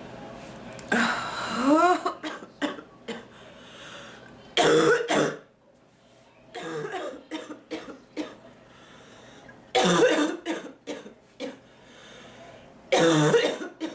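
A woman's coughing fit: loud, harsh coughs and throat clearing in bursts about every three seconds, with smaller hacks between them. She has a chesty cold with mucus that she is trying to bring up.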